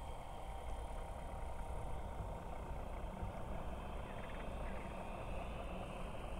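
Distant jet noise from a Sukhoi Flanker-type twin-engine fighter taking off on afterburner: a steady low rumble.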